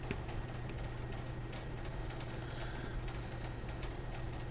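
Faint, scattered light clicks of fingers handling the resin case and bezel of a Casio Pro Trek watch during disassembly, over a steady low hum.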